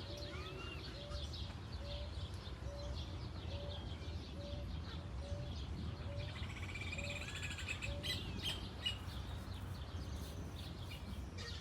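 Birds calling: one repeats a short low note about every half second for most of the stretch, while others chirp and whistle higher over it.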